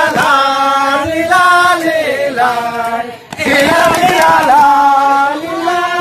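A group of men chanting in unison in long held notes that slide up and down in pitch, with a short break about three seconds in before the next phrase.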